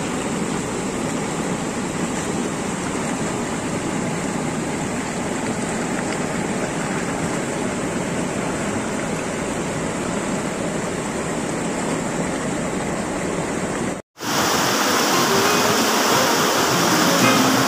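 Neelum River rapids rushing over rocks, a steady, unbroken noise of fast whitewater. About fourteen seconds in, a cut briefly drops the sound out, and the rushing comes back louder and brighter.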